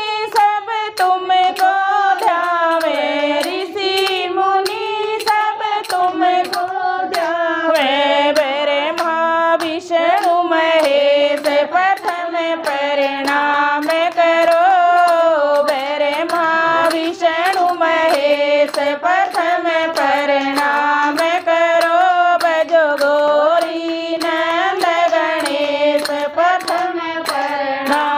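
Women singing a Hindi devotional bhajan to Ganesh together, with hand claps keeping a steady beat of about three a second.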